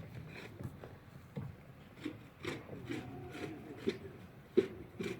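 Footsteps creaking and crunching in snow at a slow walking pace, one step about every half second.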